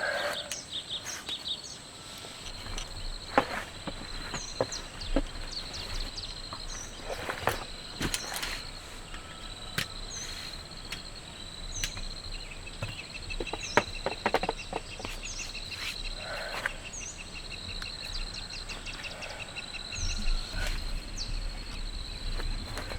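Insects chirping steadily, with a rapid even pulsing trill for several seconds midway, over scattered sharp clicks and taps.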